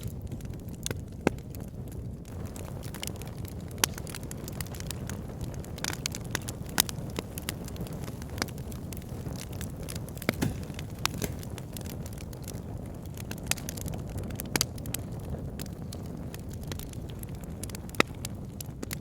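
Wood fire burning in a log burner: a steady low rumble of flames with sharp, irregular crackles and pops from the burning logs.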